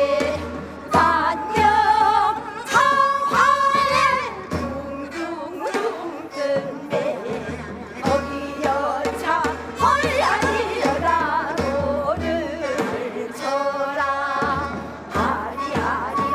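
Women singing a Namdo minyo, a southern Korean folk song, in full voice with wide vibrato. They are accompanied by daegeum flute and a janggu and buk drum keeping a steady beat.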